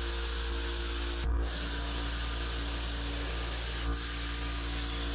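Steady hiss of a Harbor Freight gravity-feed HVLP spray gun atomizing paint, broken off briefly about a second in and again near four seconds as the trigger is let off between passes.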